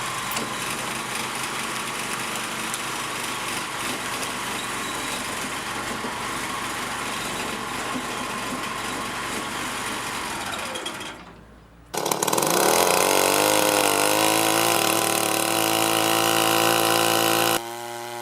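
Heavy wood-processing machinery running. A steady mechanical noise fades out about eleven seconds in; then an engine runs with its pitch briefly climbing, and the sound cuts abruptly to another machine near the end.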